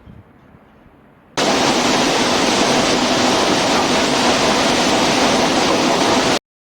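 Loud, steady rushing noise of running industrial machinery that starts suddenly about a second and a half in and cuts off abruptly near the end.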